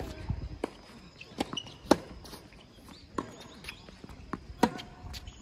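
Footsteps and sharp, irregular knocks on a hard tennis court, the loudest about two seconds in and near the end.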